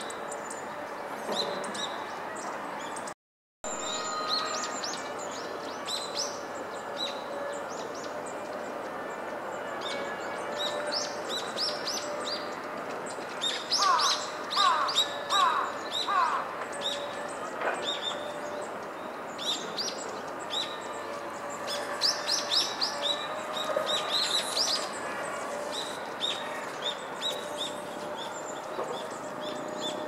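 Hawfinch calling: short, sharp, high-pitched calls, singly and in quick clusters, busiest about halfway and again about three-quarters through, with a few lower falling notes among them about halfway. A brief silent break about three seconds in.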